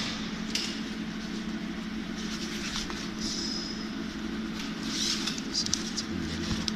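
High-frequency PVC welding machine running with a steady electrical hum. Scattered clicks come through it, with a brief hiss about three seconds in and a cluster of clicks around five to six seconds in.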